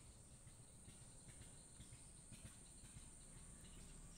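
Near silence, with faint steady high-pitched cricket chirring in the background.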